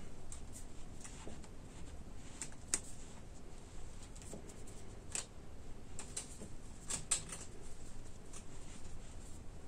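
Irregular light clicks and ticks of 1/8-inch steel wire cable strands being handled and tucked by hand while weaving a splice.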